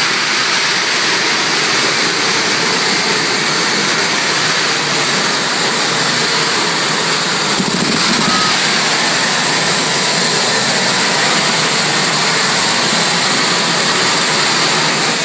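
Modified pulling tractor's engine running hard and steady at high revs as it drags a weight-transfer sled down the track.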